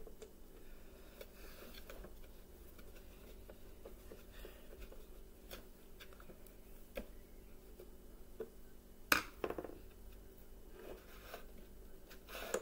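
Faint scraping and clicking of a screwdriver driving a screw into the plastic body of a Bissell PowerForce Bagless upright vacuum, and of plastic parts being handled, with one sharp click about nine seconds in.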